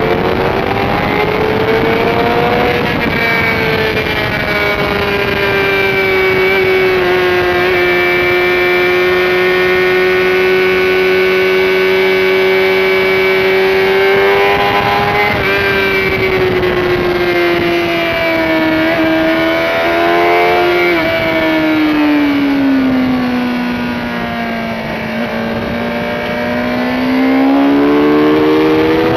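Motorcycle engine running hard at high revs, heard from the bike itself at speed. The pitch climbs over the first few seconds and holds high for a long stretch. It falls away from about twenty seconds in as the bike slows, then climbs again near the end.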